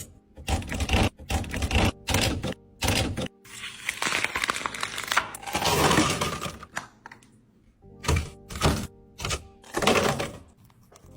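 Items and containers being handled and set down during a kitchen restock: a run of short clacks and knocks, with a longer stretch of continuous clattering in the middle, over quiet background music.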